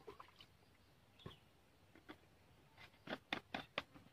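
Faint scattered clicks and knocks of a wooden stick stirring liquid pesticide mix in a plastic bucket, with a quick run of about five knocks near the end.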